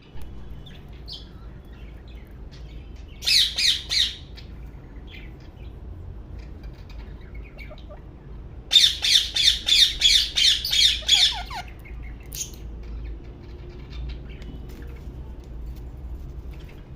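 Pet parrot squawking: a short burst of rapid squawks about three seconds in, then a longer run of about three seconds of rapid repeated squawks near the middle, with a few faint chirps between.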